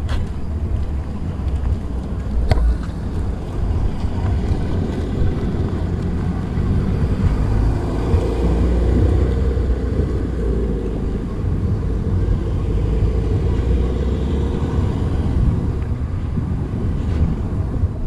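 Wind buffeting the microphone in a steady low rumble, swelling for a few seconds around the middle, with one sharp click a couple of seconds in.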